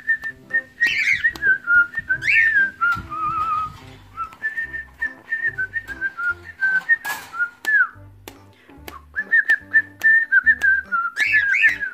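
Male cockatiel whistling a warbling tune of repeated high notes, broken by a few sharper chirps.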